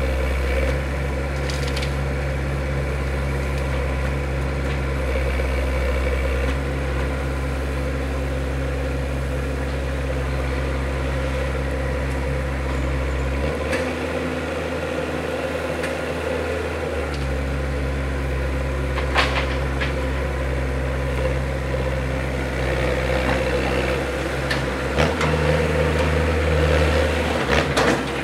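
Norcar A72 mini loader's diesel engine running steadily while it loads a truck and then reverses away. The engine note shifts for a few seconds about halfway and again near the end, with a few sharp clanks in the later part.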